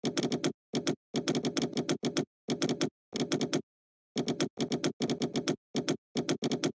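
Computer keyboard being typed on in quick bursts of keystrokes with short pauses between, the sound cutting out completely in each pause.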